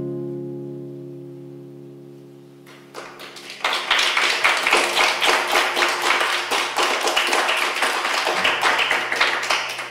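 Steel-string acoustic guitar's final chord ringing out and fading away, then audience applause breaking out about three seconds in, dense and steady, and dying down near the end.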